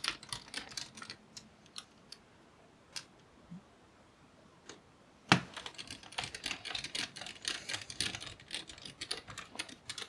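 Precision screwdriver driving the small screws that hold a laptop cooling fan, a run of light clicks and ticks from the bit and handle. The ticks thin out and go faint in the middle, then a sharper click about five seconds in starts a busier run of small ticks.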